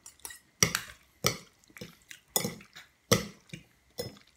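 Two forks clinking and scraping against a ceramic bowl while tossing spaghetti and macaroni in meat sauce: a series of sharp separate clinks, roughly one every half second.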